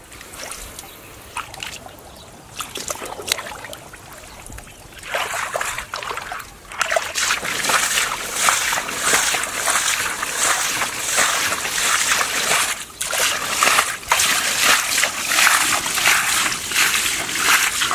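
Muddy pond water splashing and sloshing as a bare foot kicks and churns through it. Light, scattered splashes for the first few seconds, then from about seven seconds in a loud, rapid, continuous run of splashing.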